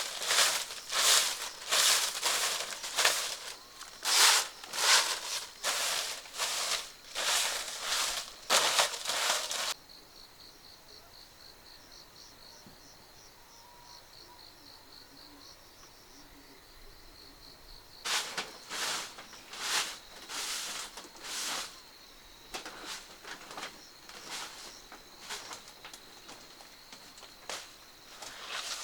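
Repeated rasping strokes, about one a second, which stop about ten seconds in. In the pause an insect trills in quick pulses, and the strokes return, sparser and fainter, near the end.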